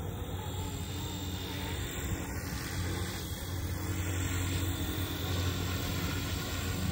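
Electric RC scale helicopter flying, a steady low hum from its rotor and drive that grows gradually louder as it comes closer. It runs quiet on a 3D-printed carbon-fibre PETG main gear, which the pilot credits for making it quieter than the stock gear.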